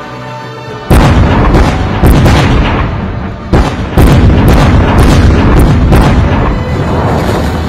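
A rapid string of large explosions going off one after another across a field, as in an artillery or bombing strike. The first blast hits about a second in, more follow at about two, three and a half and four seconds, and the rumbling carries on without a break between them.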